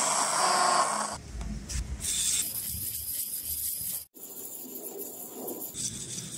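A cloth buffing wheel spins against a wooden chisel handle. After a sudden break about four seconds in, the spring-steel chisel is rubbed back and forth on abrasive paper with a rasping scrape.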